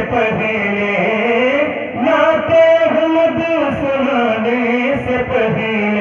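A man reciting a naat, an Urdu devotional poem, as a solo melodic chant with long, wavering held notes. He is amplified through a hand-held microphone and PA system.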